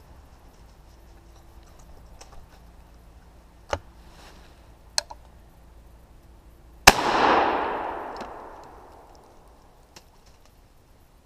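A single gunshot about seven seconds in, its report echoing and dying away over about two seconds. It is fired at a squirrel. Two fainter sharp clicks come a few seconds before it.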